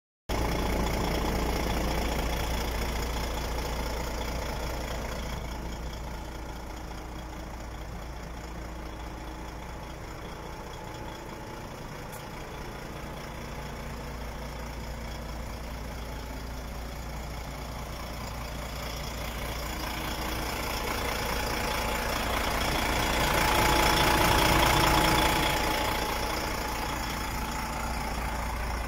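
DAF XF 105.410 truck's PACCAR MX 12.9-litre six-cylinder diesel idling steadily. It grows louder for a few seconds near the end, then eases back.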